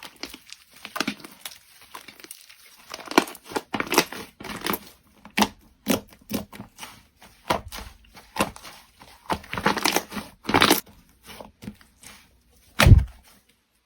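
Slime being squished and pulled by hand, giving irregular crackling pops and squelches as air pockets burst, with one louder, deeper squish near the end.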